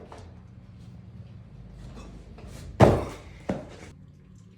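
A loud thump about three seconds in, then a lighter knock just after, over a low steady hum.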